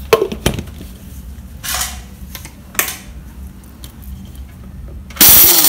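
Clicks and knocks as the polycarbonate lid and steel jar of a mixer grinder are handled and fitted onto the base, then about five seconds in the mixer grinder's motor starts with a sudden loud rush, grinding a jar of dry-roasted whole spices into powder.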